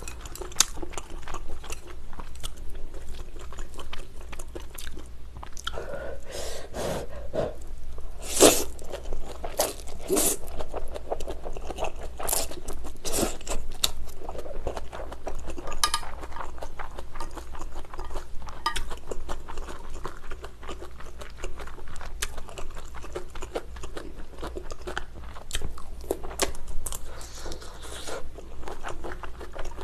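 Close-miked mouth sounds of a person chewing a mouthful of pad thai (stir-fried rice noodles with shrimp and bean sprouts), with sharp clicking bites scattered through, the loudest about eight and a half seconds in.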